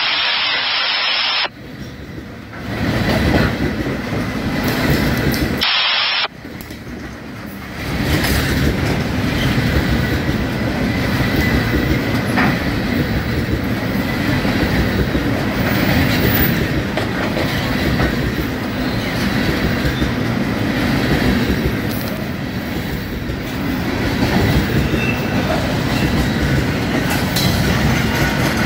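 Canadian National freight train of flatcars loaded with long rail sections rolling steadily past, wheels running over the track with occasional sharp clacks. A scanner radio's static hiss cuts off about a second and a half in and comes back briefly about six seconds in.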